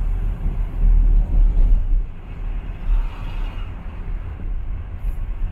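Low rumble of a moving car heard from inside, road and wind noise, easing somewhat about two seconds in.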